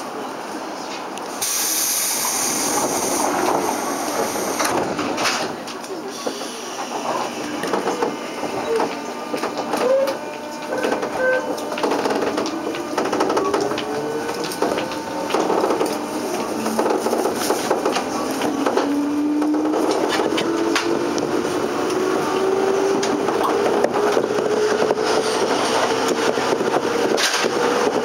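JR 203 series electric train with thyristor chopper control pulling away: a hiss of compressed air about a second and a half in, then wheel clatter on the rails, and from about halfway a motor whine that rises steadily in pitch as the train gathers speed.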